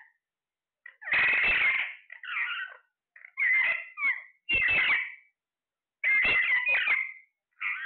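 A parrot calling: a series of about six short squawking calls with wavering pitch, each under a second or so, separated by silent gaps.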